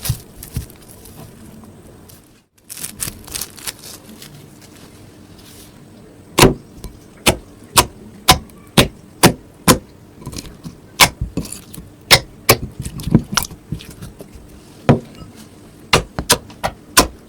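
Slime being squeezed and worked by hand, air pockets in it popping with sharp clicks. There are a few small pops at first, then loud irregular pops about one or two a second from about six seconds in.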